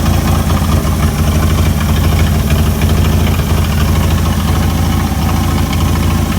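Chrysler Hemi 265 straight-six engine idling steadily.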